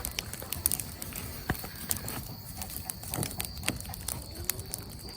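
Small brush fire crackling, with irregular sharp pops and snaps, and hens clucking faintly now and then.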